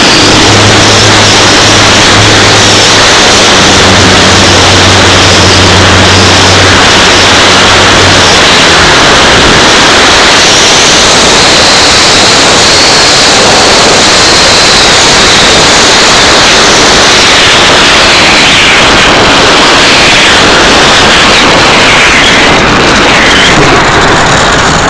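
Loud, distorted rush of airflow over the onboard microphone of an RC glider in flight. A low steady hum is heard for about the first eight seconds, and a higher whine from the brushless motor and propeller glides up and down in pitch through the middle.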